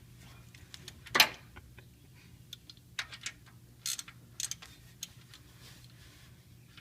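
Ratchet wrench clicking in short, irregular runs while loosening a car's oil drain plug, with one sharper, louder click about a second in.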